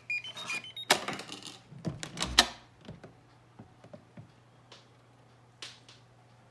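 An RFID lock gives a quick run of electronic beeps rising in pitch as it reads the card. About a second in there is a sharp click as the lock releases, then clattering knocks and a low thud as the hidden wooden door swings open on its hinges.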